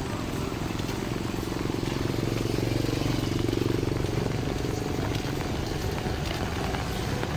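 A motor vehicle's engine passing close, growing louder about two to four seconds in and then fading, over steady street noise.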